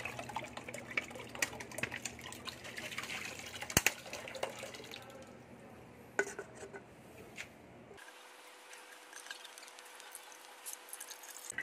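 Water splashing and dripping as the warm cooling water on top of a DIY thermoelectric generator is changed for cold water. There are sharp knocks about four and six seconds in, and it goes quieter for the last few seconds.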